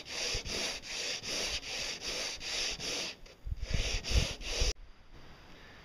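Hand sanding of a resin-coated boat pontoon with coarse sandpaper: quick, even back-and-forth rasping strokes, about two and a half a second. The strokes stop about three seconds in, followed by a few low thuds.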